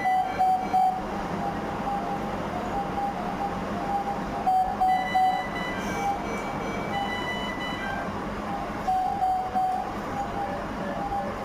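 Electronic beeping from ICU equipment: a short tone repeating every half second or so, with quick groups of three beeps near the start and again about halfway through. Higher alarm tones come and go over a steady hiss.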